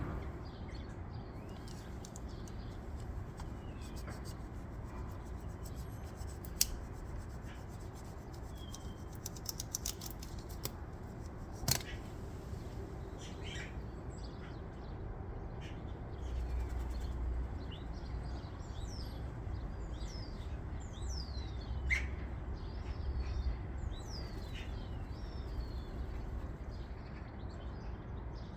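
Small birds chirping with many short calls, over a steady low rumble, with a few sharp clicks.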